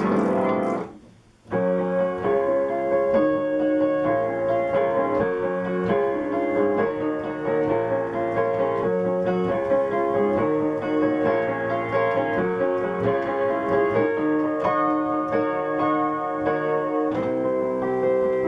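Piano music: a melody over held chords, starting after a brief drop-out about a second in.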